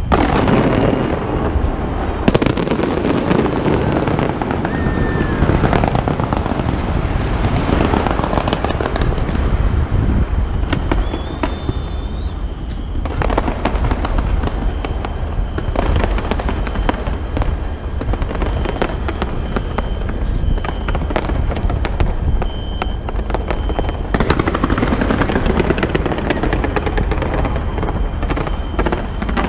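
A large fireworks display going off without a break: dense crackling and many bangs over a deep rumble.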